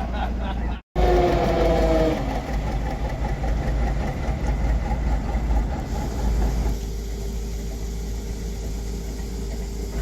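A train sounding its horn briefly, a short chord of steady tones about a second in just after the sound cuts out for an instant, then the steady rumble of the train running.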